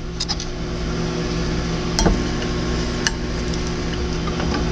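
Food and a container being handled while fajita ingredients are moved from one dish to another, with two sharp knocks of the dishes about two and three seconds in, over a steady low electrical hum.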